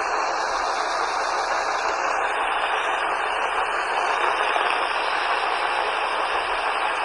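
Steady radio static: an even, unbroken hiss with no tones or voice in it.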